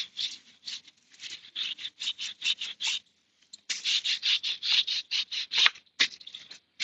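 Chain-cleaning brush scrubbing a diesel-wetted motorcycle drive chain in quick rhythmic strokes, about three or four a second, with a short pause about three seconds in.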